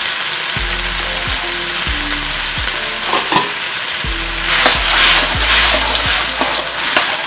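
Vegetables and sauce sizzling in a wok over a gas flame. About halfway through, a slotted metal ladle stirs and scrapes through the mixture, and the sizzling grows louder and rougher for a couple of seconds.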